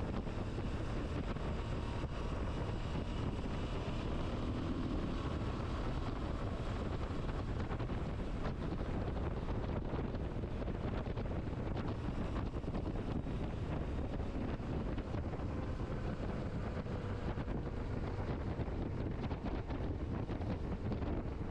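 Steady wind noise on the microphone of a moving motorcycle, with the motorcycle's engine faintly running underneath.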